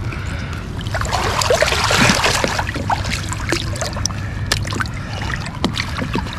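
Water sloshing and dripping close beside a kayak, with many small drips and gurgles and a heavier wash about one to three seconds in.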